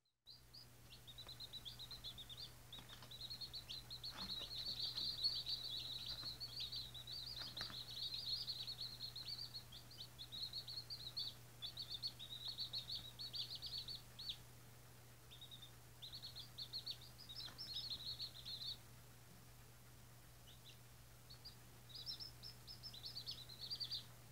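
Day-old White Australorp chicks peeping: many short, high cheeps overlapping in quick succession, dense through the first half, then coming in bursts with brief lulls.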